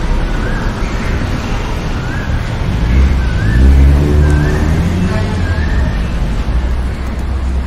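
A motor vehicle passes over steady low road rumble, its engine note rising in pitch and getting loudest about three to five seconds in. A short rising chirp repeats about once a second.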